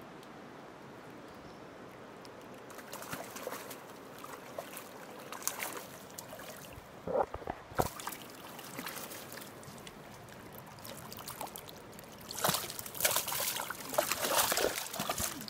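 Water splashing as a hooked trout thrashes at the surface and is scooped into a landing net: scattered splashes at first, a couple of sharp louder ones about halfway, then a dense run of splashing over the last few seconds.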